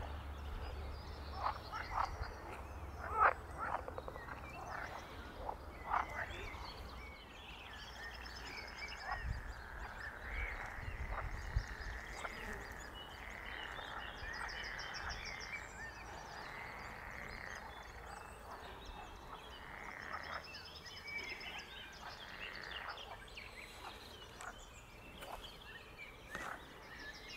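Frogs croaking in a pond chorus, repeated rounded calls, with short sharp calls in the first few seconds and brief high trills now and then.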